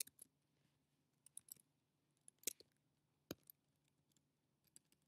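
Sparse, faint computer keyboard clicks, a few at a time with pauses of about a second between, over a quiet room.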